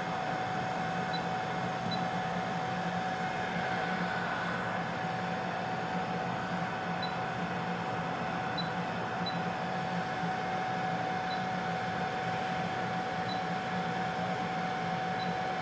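Steady fan whir of a BGA rework station's hot-air heater blower and cooling fans, with one constant hum tone and a few faint ticks scattered through.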